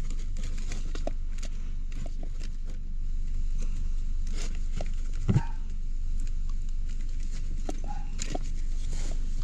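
Hands working a plastic wiring harness plug off a car's AC blower motor: scattered small clicks and taps, with a heavier thump about five seconds in.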